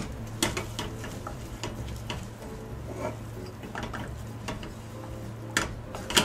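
A spatula stirring dry ground-meat keema curry in a stainless steel saucepan: irregular scrapes and light clicks against the pot, with a couple of louder scrapes near the end, over a steady low hum.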